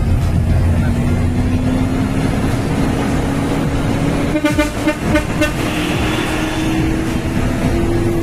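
Nissan Diesel tanker truck's engine running under way, a steady drone whose pitch climbs slowly as the truck gathers speed. A short pulsing, horn-like toot sounds a little over four seconds in.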